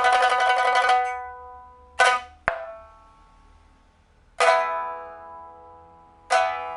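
A pipa, a 2012 Man Ruixing African rosewood instrument with a new soundboard and frets, a steel first string and copper lower strings, being played: a fast tremolo ends about a second in, then come separate sharp plucked strokes with a crisp snap just after two seconds, and ringing struck chords at about four and a half seconds and again near the end.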